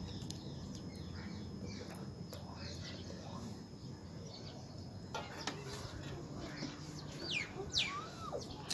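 Birds chirping, with several quick sweeping calls near the end, over a steady low background noise. Small clicks of plastic toy-car parts being handled.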